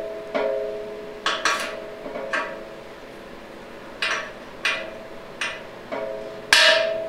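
Hammer striking a socket to drive a new case bushing down into its bore in a GM 4L60E transmission's aluminium case. About nine sharp metal strikes at uneven intervals, each leaving a short ringing tone.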